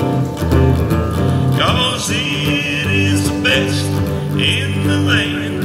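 Hollow-body electric guitar played live through a small PA speaker, a steady country-style rhythm with bass notes and bent lead notes.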